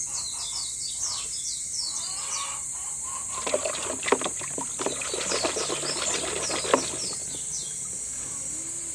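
Small birds chirping in quick runs of short, high, falling notes, with a stretch of sharp clicks and rattles in the middle.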